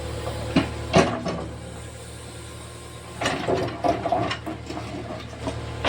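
Backhoe loader's diesel engine running steadily at low revs. Two sharp knocks come about half a second and a second in, and a burst of clatter follows around three seconds in.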